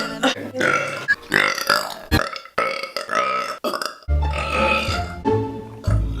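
A woman burping several times in a row, each burp one to two seconds long and pitched, with abrupt cuts between them.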